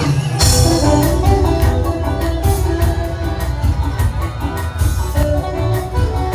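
Live band music through a concert PA, heard from the crowd: guitar and held instrument notes over a heavy bass and a steady drum beat.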